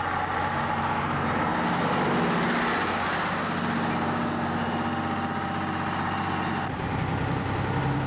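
Coach bus driving past on a road, its engine and tyres swelling to loudest about two to three seconds in. Near the end the sound changes to a steadier, lower engine hum, as from a moving vehicle.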